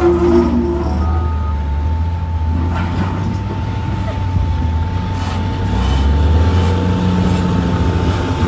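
Heavy diesel engines running at a quarry loading site: a Caterpillar wheel loader pulls back from a dump truck with its engine working, while the truck's diesel idles. A steady high tone runs underneath, and the engine noise swells about six seconds in.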